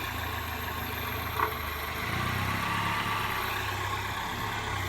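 1999 Toyota Corolla's 1.8-litre four-cylinder engine idling steadily, with a single short click about a second and a half in. The steering is being turned, which loads the power steering pump and quiets the knock-like noise from its wobbling, failing pulley, so the engine sounds smooth.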